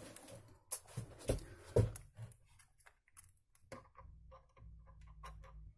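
Scattered light clicks and knocks of a cordless drill and screw being handled and set against the underside of a melamine-covered particle-board shelf, about eight small knocks at uneven intervals.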